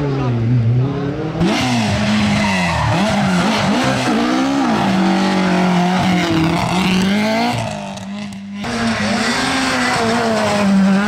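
Rally cars driven flat out, engines revving up and down through gear changes, with tyre and gravel noise. The sound changes abruptly twice, about a second in and again near the end, as it cuts from one car's pass to another's.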